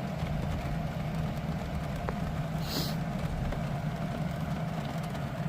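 Steady low hum of an air conditioner running inside a van, with a brief faint high-pitched sound about three seconds in.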